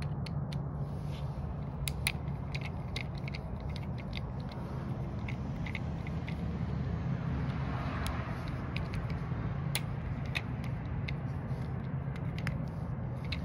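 Scattered light clicks and scrapes of a screwdriver working the small float-bowl screws on a leaf-blower carburetor, the bit camming out of the screw heads, over a steady low hum.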